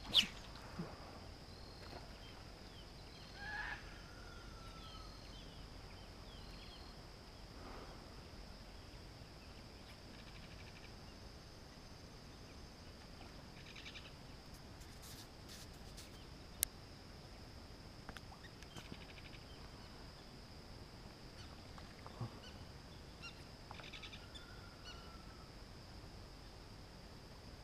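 Faint pondside outdoor ambience: a steady high-pitched hum with scattered bird calls, two of them short calls sliding downward, and a few sharp clicks, the loudest right at the start.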